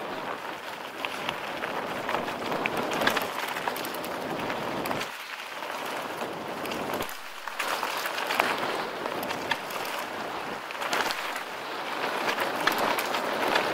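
Mountain bike rolling down a rough trail: steady tyre noise over the ground with many small clicks and rattles, and wind on the microphone. The noise dips briefly twice near the middle.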